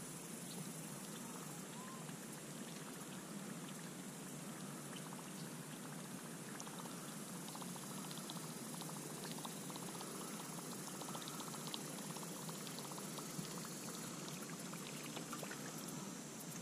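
Fishing reel being cranked during a lure retrieve, a fine rapid ticking purr that comes in stretches, over a steady faint outdoor hiss.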